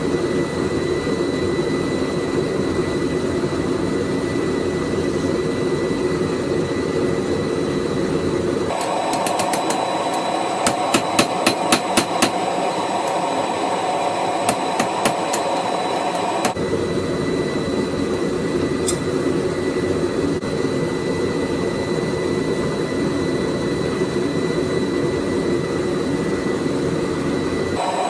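Steady noise from a running forge, broken in the middle by a run of quick hammer blows on hot steel on an anvil, about three a second, and then a few more blows. The hammering is shaping the split head of a railroad spike.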